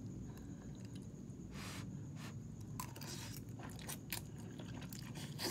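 A person slurping and chewing instant ramen noodles in broth, with several short slurps, the longest about three seconds in and another near the end.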